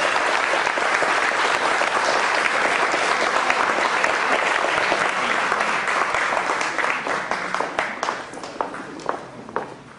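Audience applauding, steady at first, then thinning out over the last few seconds to scattered individual claps.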